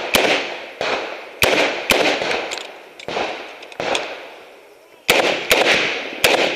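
Revolver shots fired in a string, about a dozen sharp cracks spaced half a second to a second apart, each trailing off in an echo. There is a gap of about a second a little past the middle while the shooter moves to a new position.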